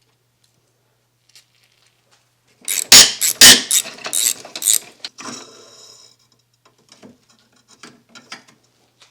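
Ratchet wrench clicking in several loud bursts as the battery hold-down bracket nut is loosened, followed by lighter scattered clicks and metal rattles.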